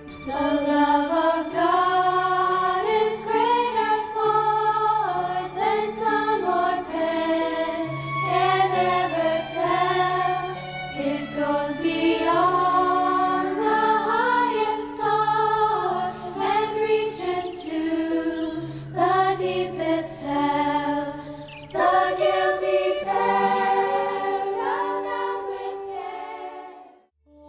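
Background music: a choir singing a slow melody over sustained low notes, fading out and stopping just before the end.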